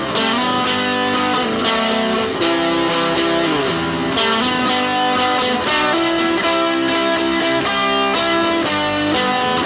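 Instrumental alt-folk music with guitars: a plucked guitar part with sliding, held notes, between sung verses.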